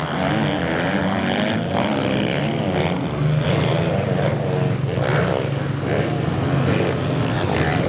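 Several motocross bikes racing on the track, their engines revving up and down continuously.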